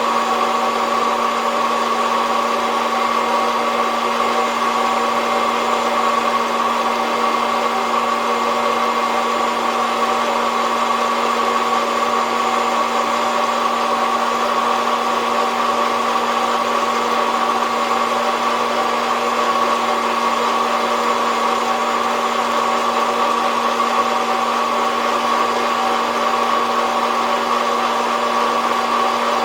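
SOUYI SY-121N hot-air coffee roaster running steadily mid-roast, its fan blowing a constant rush of air with an even motor hum.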